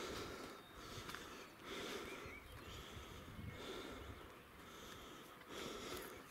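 A person breathing, soft breaths swelling and fading about every two seconds.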